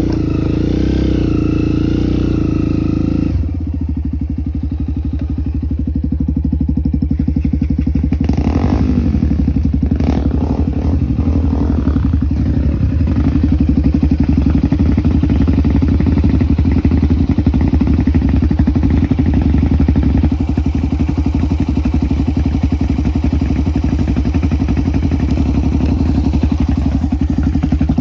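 Single-cylinder motorcycle engine running steadily with a fast pulsing beat; its sound changes abruptly about three seconds in.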